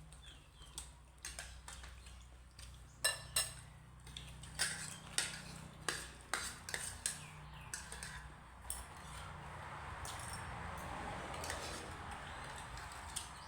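Spoon and fork clinking against a plate in scattered sharp taps during a meal, with a steady rushing noise swelling in the second half.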